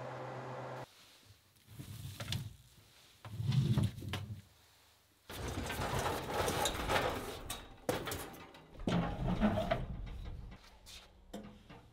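A convection oven's fan hums steadily for about a second, then gives way to handling sounds as the steel lid of an Oklahoma Joe's grill is lifted open.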